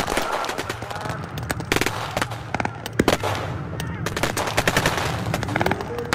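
Military rifles and a machine gun firing blanks in a staged firefight: rapid bursts of automatic fire mixed with single shots, with the densest volley in the second half.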